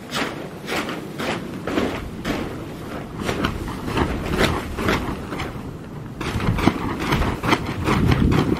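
Gusty wind buffeting the microphone, with the plastic sheeting of a tarp-covered structure flapping and crackling in it, two or three sharp crackles a second, loudest near the end.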